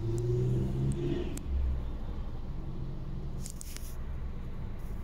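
Road traffic: a steady low car-engine and tyre rumble. A vehicle's engine hum stands out over it for the first second or so.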